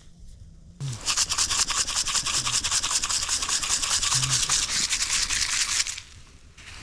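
Rapid, even rubbing strokes for about five seconds, starting and stopping abruptly.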